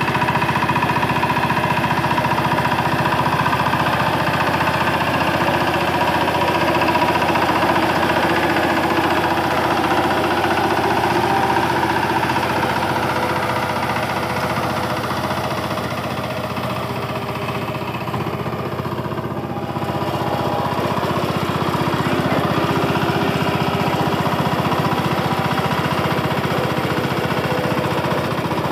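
VST Shakti 130DI power tiller's single-cylinder diesel engine running steadily under load, a rapid even chugging, as the tiller is worked with cage wheels through deep paddy-field mud.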